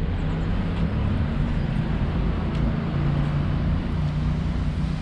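Street traffic noise: a steady low rumble of road vehicles, with no distinct events.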